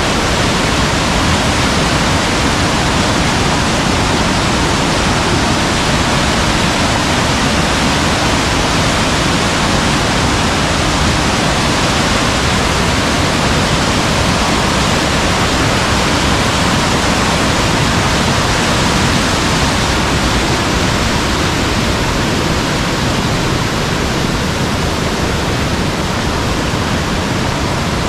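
Loud, steady rush of water with no breaks, easing slightly near the end.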